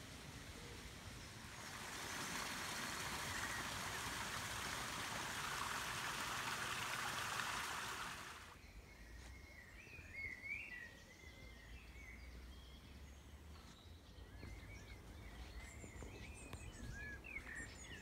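Outdoor ambience: a steady rushing hiss that cuts off abruptly about eight seconds in, then small birds chirping and twittering in short bursts.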